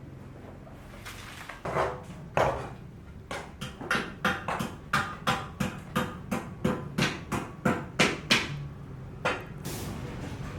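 Repeated hammer strikes on a building site: two single blows, then a steady run of about three blows a second for around five seconds, and one last blow. A steady hiss comes in near the end.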